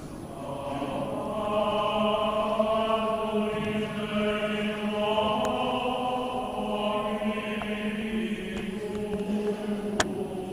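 Voices chanting together in long, slowly changing held notes, rising in about half a second in. A sharp click sounds near the end.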